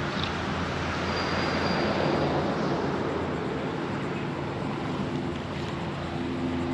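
A steady low mechanical hum of several tones, like a motor running, under a broad rushing noise.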